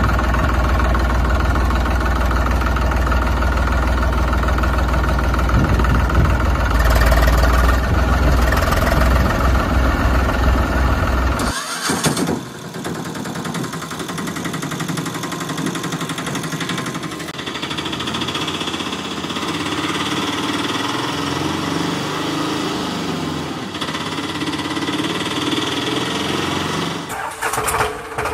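Tractor engine sound effect running steadily with a deep, heavy hum. About twelve seconds in it cuts abruptly to a lighter, higher-pitched engine sound, and it turns into a pulsing rhythm just before the end.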